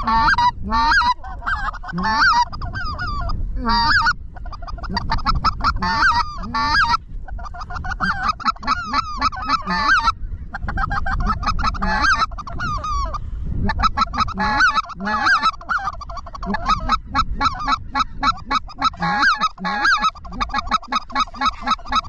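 Geese honking and clucking in rapid, overlapping calls, loud and almost without a break, with short pauses partway through.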